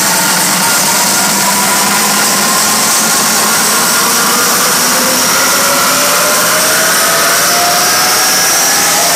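Electronic dance music build-up over a festival sound system, very loud: a dense rising noise sweep with synth tones that climb slowly in pitch.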